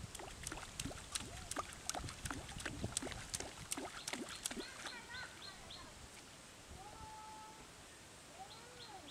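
Hooked fish thrashing at the pond surface, a quick run of sharp splashes for about the first four and a half seconds. The splashing then dies away, and short bird chirps are heard later.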